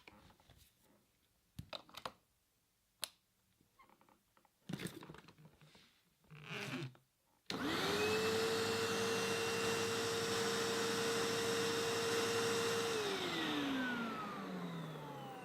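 A few scattered clicks and knocks, then a vacuum cleaner switches on with a steady whine over a rush of air. It runs for about five seconds and is switched off, the motor winding down in a falling whine.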